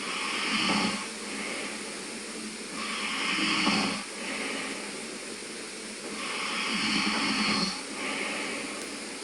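A man snoring in his sleep: three snores about three seconds apart, each followed by a softer breath out.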